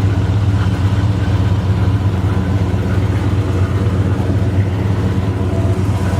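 GM 350 crate V8 with a mild performance cam, idling steadily through headers and dual exhaust.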